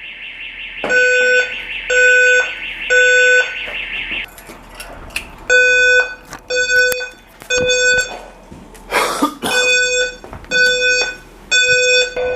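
Building fire alarm sounding repeated electronic beeps, roughly one a second, with short pauses between groups. A second, higher buzzing alarm sounds continuously over it for about the first four seconds, then cuts off. A brief burst of noise comes about nine seconds in.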